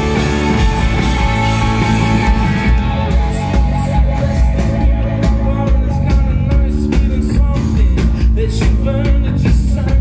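Rock band playing live through a venue PA: distorted electric guitars, bass and drums, with a singer's voice over them.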